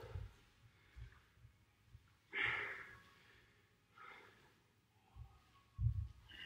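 A man breathing hard while recovering between workout rounds, with a loud exhale about two and a half seconds in and a softer one around four seconds. Bare feet land on a wooden floor with low thuds, the heaviest near the end.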